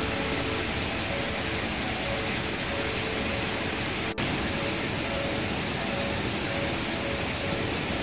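Steady rush of a swollen waterfall and river rapids in high flow, with a momentary break about four seconds in.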